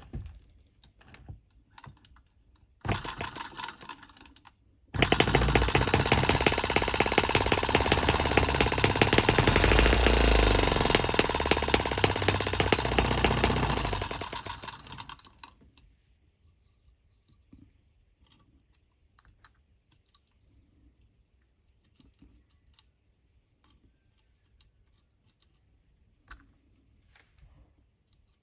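M17B brass scale model engine running with a fast, even beat for about ten seconds, then slowing and stopping. A short loud burst comes about three seconds in, and faint small clicks come before it and after the engine stops.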